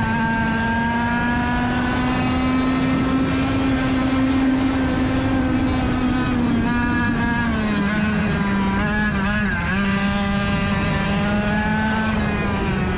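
Rotax DSB two-stroke kart engine running at high revs. Its pitch holds high and climbs slightly, drops a little past halfway, wavers, then climbs again near the end.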